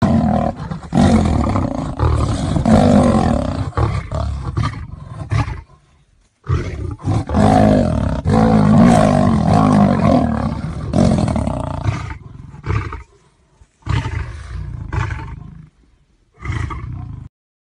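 Lion and tiger roaring in a fight, in four loud stretches, each breaking off suddenly.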